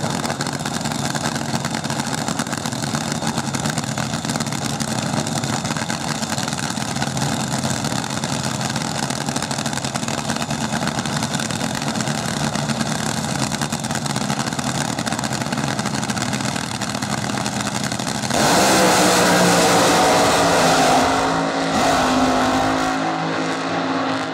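Top Fuel dragster engines running steadily at the starting line, then a sudden full-throttle launch about 18 seconds in, much louder, dropping in pitch and thinning out as the cars pull away down the track.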